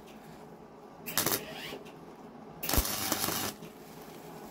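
MIG welder arc crackling in short tack-welding bursts: a brief burst about a second in, then a longer one of nearly a second around three seconds in.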